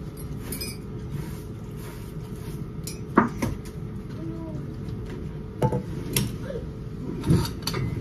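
Dishes and cutlery clinking: a handful of short sharp clinks and knocks, spread over several seconds, above a steady low hum.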